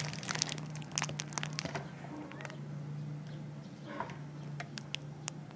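Scattered light clicks and crinkling as a hand-held magnifying glass with a plastic-wrapped handle is picked up and handled, over a steady low hum.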